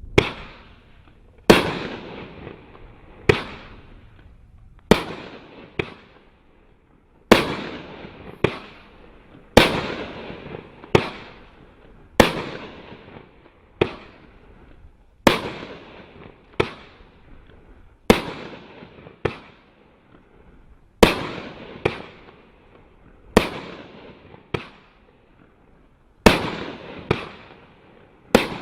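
Consumer 500-gram fireworks cake firing shot after shot, about one every second or so. Each shot is a sharp bang followed by a fading hiss of the effect as it burns out.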